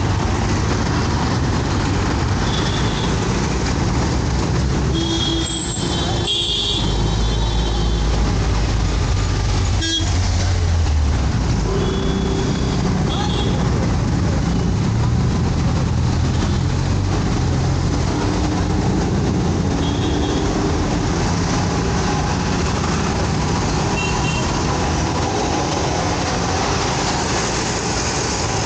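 Steady traffic and engine noise heard from a scooter riding through city streets, with vehicle horns tooting briefly several times.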